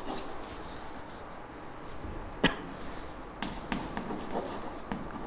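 Chalk tapping and scraping on a chalkboard as an equation is written, in short sharp clicks, the loudest about two and a half seconds in.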